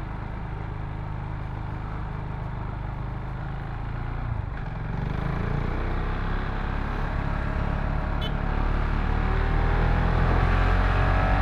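KTM Duke 690's single-cylinder engine running while riding. About halfway through it grows louder, and over the last few seconds its pitch climbs as the bike accelerates.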